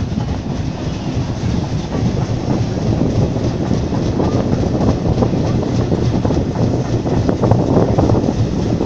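Steam-hauled heritage train running at speed, heard from an open carriage window: steady rolling rumble of the coaches with the clickety-clack of wheels over rail joints, growing louder toward the end.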